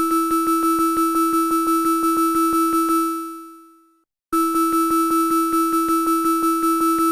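Emergency-alert-style alarm tone: a bell-like tone struck about six times a second in a rapid ring. It sounds for about three seconds, rings out, and starts again after a short gap.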